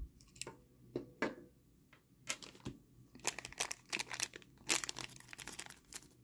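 A few small clicks, then from about two seconds in a dense crinkling and rustling of a plastic bag being handled and pulled open.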